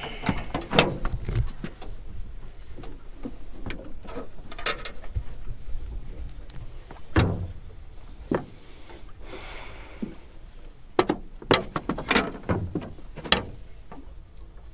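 Scattered knocks and clunks of gear being handled in a boat, about a dozen sharp hits with a cluster near the end. A steady high insect drone runs underneath.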